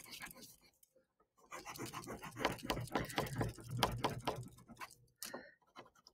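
A blue crayon rubbed back and forth on a sheet of paper on a hard table, coloring in an area: a run of rapid strokes that pauses briefly about a second in, resumes, and ends with a few last strokes.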